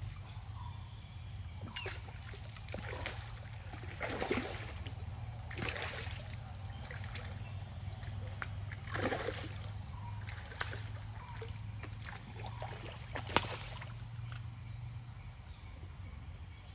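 Splashing of a hooked rohu thrashing at the river surface while it is played on a pole rod, a splash every second or few, the sharpest about thirteen seconds in.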